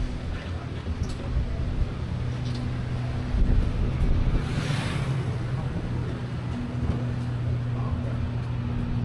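Tourist road train's engine running steadily as it drives along, with road rumble and occasional clicks and rattles. A motor scooter passes about halfway through, a brief rush of noise.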